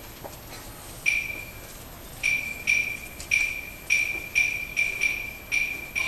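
A small metal percussion instrument struck about ten times at one high, clear pitch, each note ringing briefly and dying away; after a slow start the strikes come faster.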